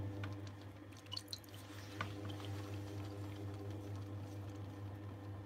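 Electric potter's wheel humming steadily while a lump of wet clay is centred by hand on the spinning wheelhead, with small wet squelches, drips and ticks of slip under the pressing hands.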